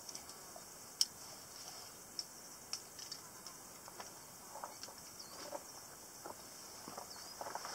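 Scattered light clicks and scrapes of a rock climber on the wall: hands, shoes and gear knocking against limestone. Under them runs a faint steady high hiss of insects.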